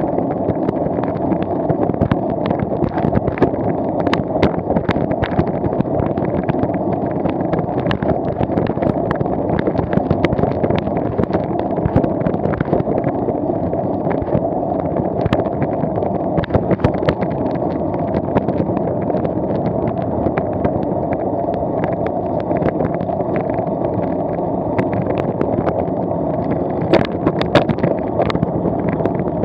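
Wheels rolling along fresh asphalt at speed: a steady rolling rumble with frequent small clicks and knocks, a few sharper ones near the end, and wind on the microphone.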